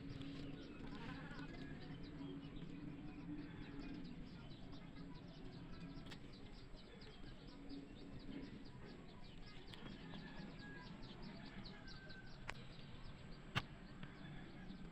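Faint outdoor background with scattered small bird chirps and clicks over a low steady hum, and a couple of sharper ticks near the end.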